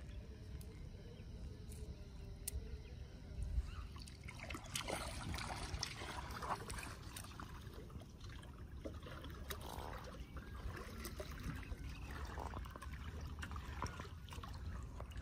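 Quiet water trickling and splashing lightly at the side of a small wooden fishing boat, with a few light knocks and clicks.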